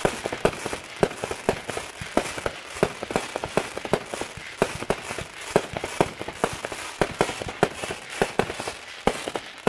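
Hot Fireworks 'Perfect Storm' 50-shot firework cake firing: a dense run of crackling with many sharp bangs, several a second.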